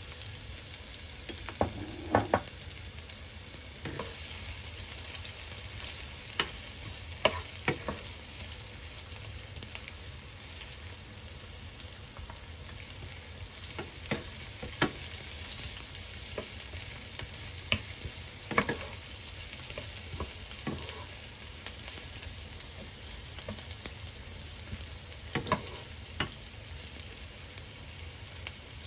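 Sliced onions and garlic sizzling steadily in hot cooking oil in a nonstick frying pan. A wooden spatula knocks sharply against the pan now and then as they are stirred.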